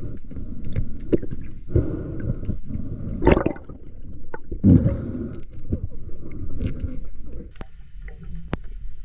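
Underwater water noise: gurgling and surging of water against the camera, coming in several surges. It settles about three quarters of the way in, leaving scattered sharp clicks.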